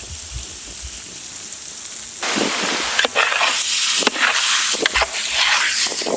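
Soaked biryani rice sizzling and crackling in the hot masala in the cooking pot. The loud hissing with sharp crackles sets in about two seconds in.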